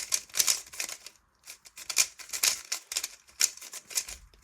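Plastic 3x3 speedcube, a MoYu HuaMeng YS3M, being turned fast: rapid runs of clicking and clacking layer turns, broken by brief pauses, the longest about a second in.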